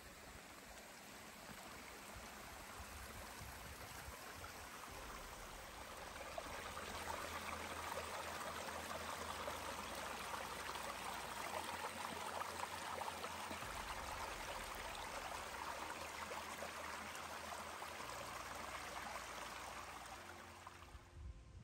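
Rushing water of a creek, a steady hiss that grows louder about six seconds in, holds, then fades out near the end.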